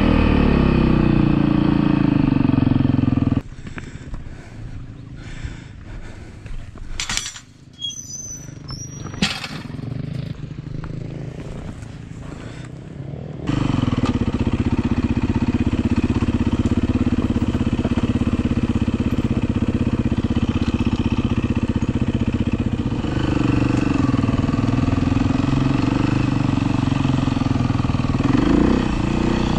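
Dirt bike engine running under way. About three seconds in it drops to a much quieter, low running sound with a few clicks and knocks, and about halfway through it comes back up loud and runs steadily, with small changes in pitch near the end.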